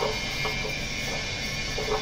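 Instrumental background music with short percussive ticks.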